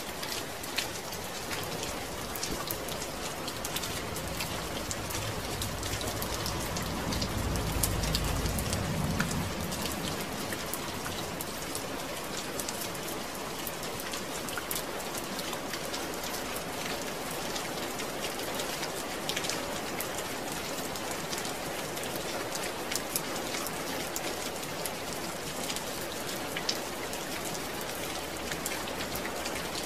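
Steady rain falling, an even hiss dotted with many sharp drop ticks. A low rumble swells and fades about a third of the way in.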